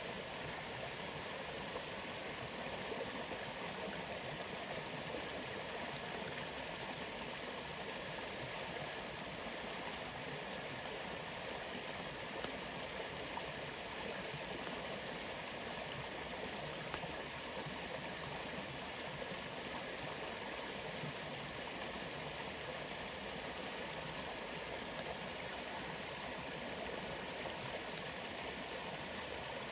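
A waterfall's rushing water: a steady, even rush of flowing water with no change in level, with a few faint ticks on top.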